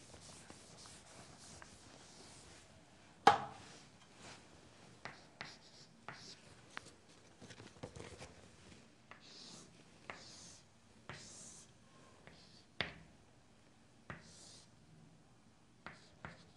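Chalk on a chalkboard: short scratchy strokes as a triangle is drawn, among scattered sharp taps and knocks, two of them louder than the rest.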